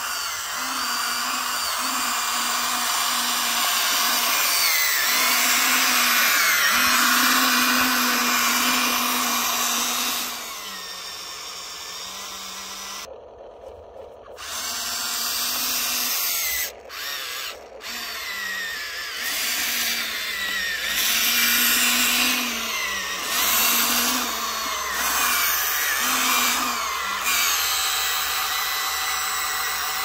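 Electric motors of a Huina remote-control excavator whining as it moves, the whine stopping, starting and shifting pitch every second or two. Briefly drops out twice in the middle.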